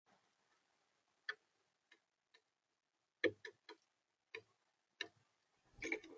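A dozen or so sharp taps and clicks at uneven intervals, close to the feeder camera's own microphone, from an animal feeding on the bird feeder. They come singly at first, then in a quick cluster near the end.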